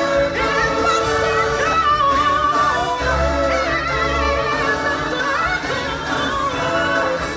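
Music with singing voices over instruments.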